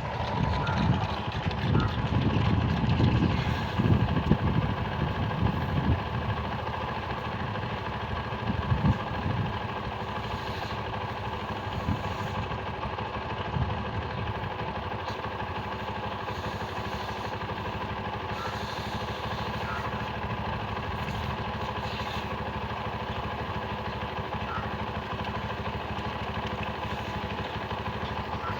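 An engine running steadily, with heavier low rumbling and a few knocks through the first ten seconds.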